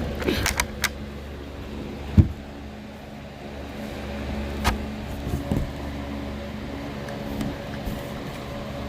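Close-up eating and handling noises: a few sharp clicks in the first second, a strong thump about two seconds in, then softer knocks, over a steady low hum.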